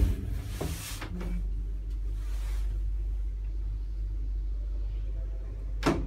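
Old-fashioned passenger lift travelling between floors: a steady low rumble sets in about a second in, after a few clicks, and a sharp click comes near the end.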